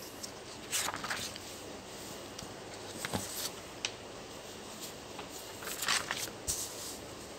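Sheets of paper rustling as pages are lifted and turned over on a clipboard. The rustle comes in short bursts: about a second in, around three seconds, and again around six seconds.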